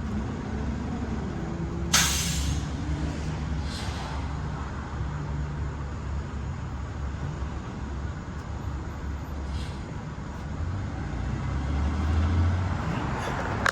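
Motor vehicle engine and traffic rumbling steadily, with a short sharp hiss about two seconds in and fainter ones later.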